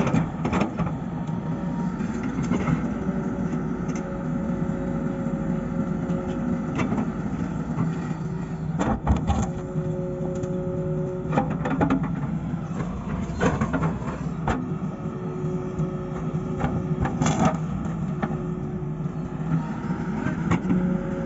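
Excavator's diesel engine running steadily, with a higher whining tone that comes and goes several times and a few sharp knocks.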